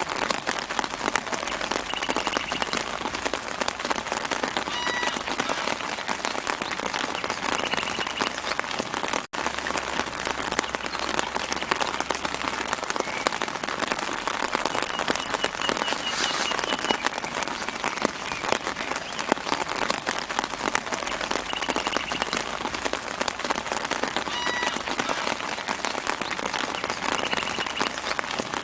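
Light, steady rain falling on leaves, a dense patter of drops, with faint short bird trills now and then in the background. The sound drops out for an instant about nine seconds in.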